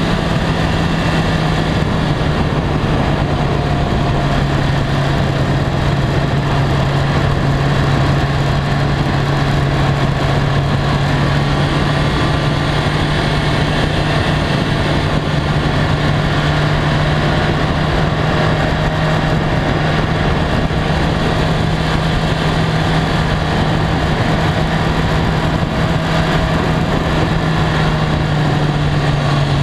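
BMW K1300R motorcycle's inline-four engine running at steady cruising revs under way, its note holding nearly level, with wind and road noise over it.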